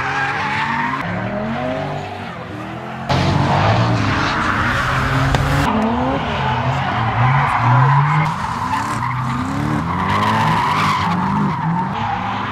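Drift cars' engines revving up and down in repeated rising and falling glides, over the hiss of tyres skidding. The sound jumps suddenly louder about three seconds in.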